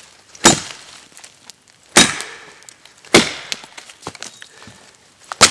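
A machete chopping into a fallen dead log: four sharp strikes of the blade into the wood, a second or more apart.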